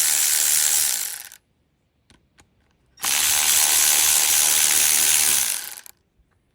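Electric ratchet running in two bursts of a few seconds each, spinning out the two 7/16 bolts of the oil filter adapter on a Chevy 350 block. A couple of light clicks fall in the pause between the bursts.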